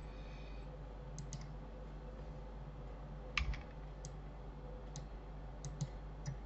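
About eight sparse clicks of a computer mouse and keyboard as a menu is opened and an entry chosen, the loudest about three and a half seconds in, over a low steady electrical hum.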